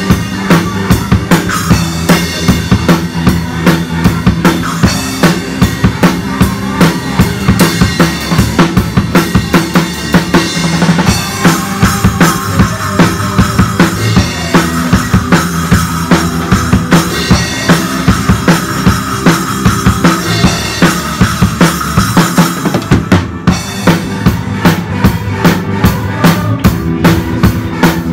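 Acoustic drum kit played in a steady groove, with kick drum, snare and cymbals struck close to the microphone and the band's pitched instruments underneath.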